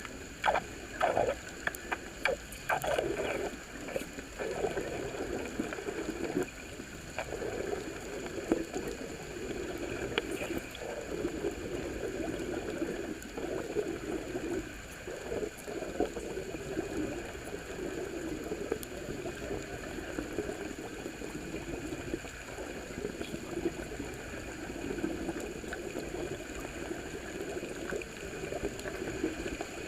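Bubbling and gurgling water underwater, with a few sharp clicks in the first few seconds.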